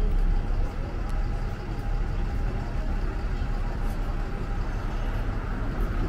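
City street traffic: a steady low rumble of passing motor vehicles.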